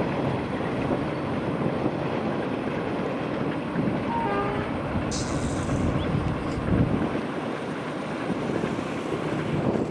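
Passenger train running past on the rails, a steady loud rumble of wheels and cars.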